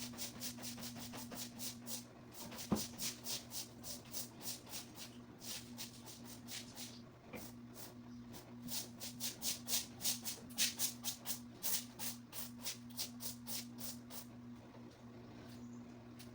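Quick, rhythmic brushing strokes, several a second, in runs broken by short pauses, over a steady low hum; a single sharp knock about three seconds in.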